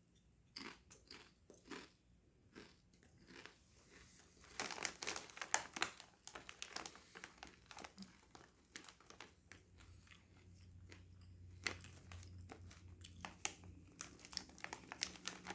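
Crunching and chewing of Doritos tortilla chips close to the microphone: scattered crisp cracks at first, then denser bouts of crunching from about four seconds in.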